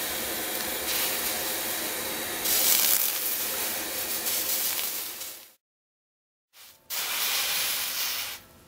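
MAP gas torch flame hissing steadily while silver solder is flowed into the hot fitting joint on the pot; it cuts off abruptly about five and a half seconds in. After a second of silence, a wet paper towel hisses and flash-steams against the hot soldered joint for about a second and a half.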